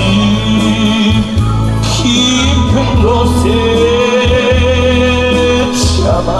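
A man singing a Korean trot song live over a loud amplified backing track with a steady bass, holding one long note in the second half.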